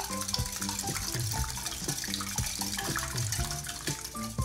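Wire whisk beating raw eggs in a glass bowl: a rapid, wet sloshing, over background music.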